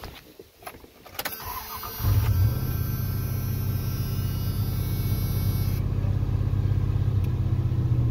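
Dodge Ram pickup engine starting about two seconds in, after a click, then idling steadily. It catches after the failing fuel pump was struck with a rubber mallet, which the owner takes as the sign of a fuel pump going bad.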